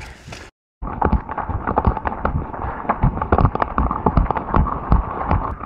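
A trail runner's footsteps on dirt and gravel with trekking-pole tips striking the ground, a quick uneven run of thuds and clicks. The sound drops out briefly about half a second in, then carries on.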